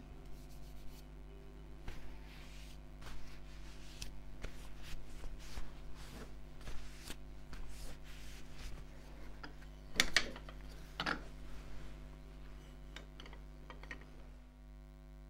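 Cloth rubbing oil onto turned juniper spatulas, with light wooden clicks and knocks as the spatulas are handled and laid down, two louder knocks about ten seconds in. A steady low hum underneath.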